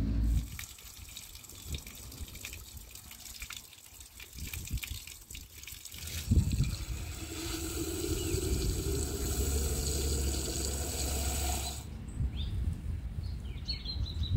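Water running and splashing, steadiest from about six seconds in and cutting off suddenly near the end.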